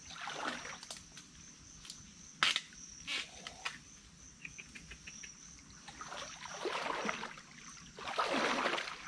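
Steady high-pitched insect drone under rustling of brush and leaves, with one sharp snap about two and a half seconds in and a smaller one just after.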